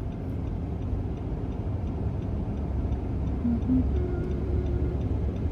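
A car heard from inside the cabin: a steady low engine and road rumble, with a faint regular ticking.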